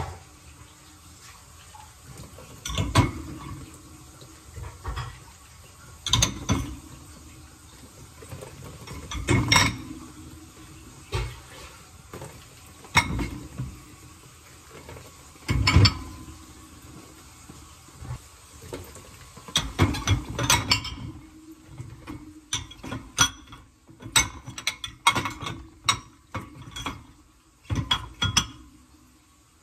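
Dishes and bowls clattering as they are set into a dishwasher rack: separate knocks every few seconds, coming quicker and closer together near the end.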